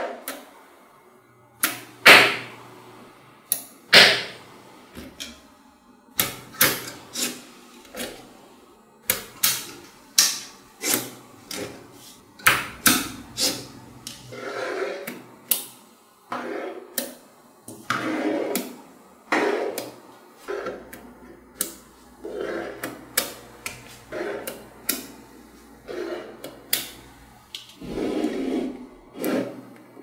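Blocks of small magnetic balls snapping and clacking together as they are pressed and fitted into place: irregular sharp clicks, a few louder knocks, and short rubbing scrapes as the blocks slide against each other.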